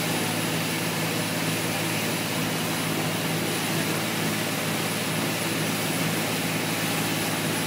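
River passenger boat's engine running steadily, a constant low drone under the rush of water and wind.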